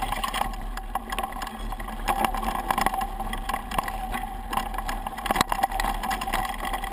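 Mountain bike rolling fast over a rough dirt trail: tyres crunching on the ground and the bike and handlebar-mounted camera rattling, with many sharp knocks from bumps, the hardest about five and a half seconds in.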